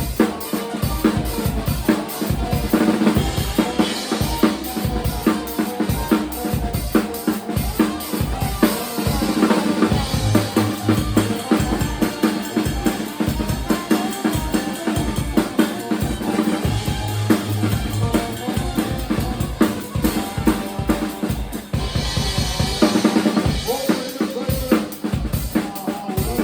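Live band playing an instrumental passage: a drum kit drives it with rapid bass-drum, snare and rimshot hits over sustained pitched chords.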